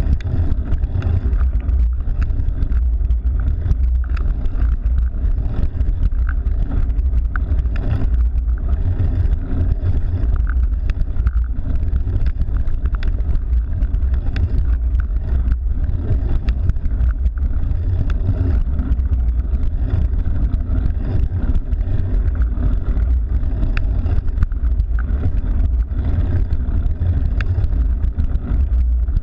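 Wind buffeting the microphone of a camera riding along on a cyclocross bike: a loud, steady low rumble, with faint ticks scattered through it.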